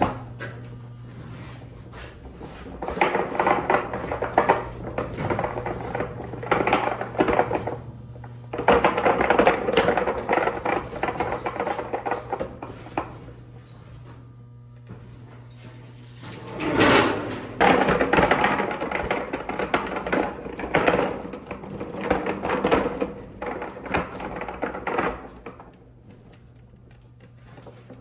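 Irregular scraping, rustling and knocking in spells of a few seconds, as from someone moving about and handling things in a cramped crawlspace. A steady low hum underneath stops about two-thirds of the way through.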